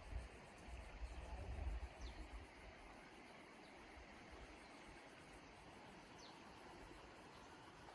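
Faint outdoor ambience: a steady high insect trill with a few brief falling chirps, and low wind rumble on the microphone during the first two seconds.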